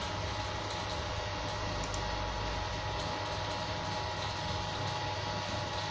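Steady machine hum with several thin, steady whining tones over it, a 3D printer's motors and fans running. A few faint clicks come about two seconds in.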